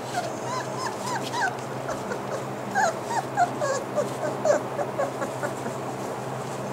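Bernese Mountain Dog puppies, five to six weeks old, whimpering: many short, high whines, several a second, that die down after about five seconds.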